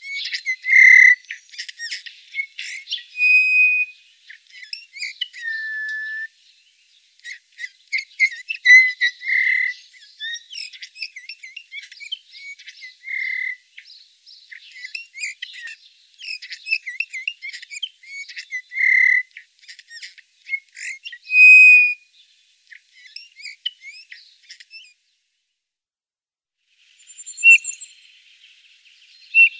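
Songbirds chirping and singing: a dense run of quick chirps and trills mixed with clear, held whistled notes, stopping for about two seconds near the end before starting again.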